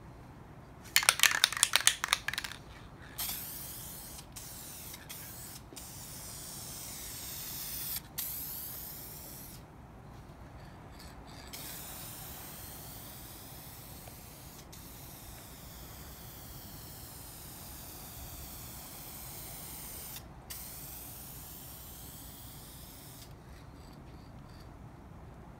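Aerosol spray paint can: a rapid loud rattle as the can is shaken about a second in, then long stretches of spray hissing with short pauses, stopping shortly before the end.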